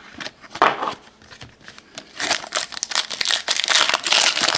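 Trading card pack wrapper being torn open and crinkled by hand, in irregular rustling bursts, the longest and loudest in the second half.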